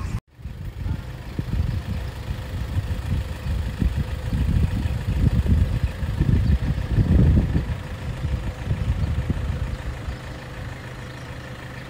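Car driving, heard from inside the cabin: an uneven low road and engine rumble with a steady hum underneath. The sound cuts out for a moment just after the start.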